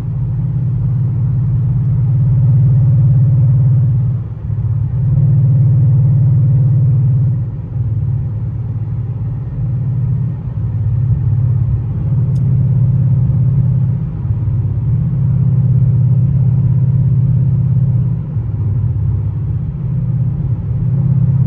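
Cabin drone of a Ford Mustang GT's 5.0 V8 on its stock exhaust, mixed with tyre and road noise, while cruising at highway speed. The low drone swells and eases every few seconds.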